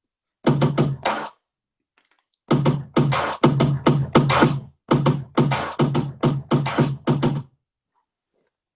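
A few seconds of electronic music with a fast drum-machine beat: a short burst about half a second in, a brief gap, then a steady run of beats that stops abruptly a second before the end.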